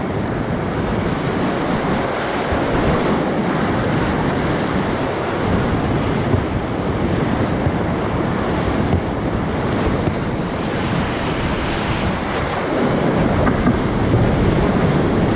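Whitewater rushing around a kayak running a rapid, heard close up from a kayak-mounted camera, with wind buffeting the microphone. The roar swells near the end as the boat drops through the rapid and water washes over the camera.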